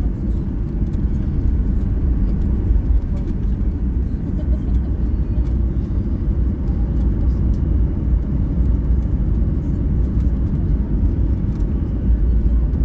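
Steady low rumble inside a jet airliner's cabin as it taxis slowly along the runway, its engines running at low thrust.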